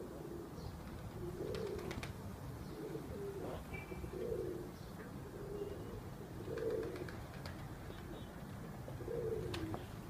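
Domestic fancy pigeons cooing, a low coo repeating about every second and a half.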